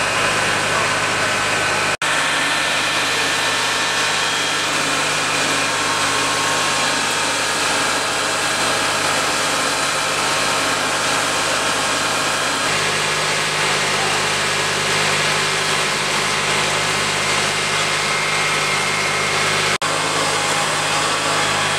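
Fire truck engines running steadily: a constant low hum under a dense rushing noise, with two very brief dropouts.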